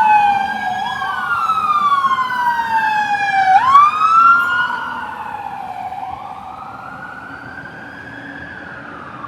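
Sirens of two Mercedes-Benz Atego fire engines wailing together out of step, each sweeping slowly down and rising quickly again over a truck engine's rumble. They are loudest about four seconds in, then fade as the trucks pull away.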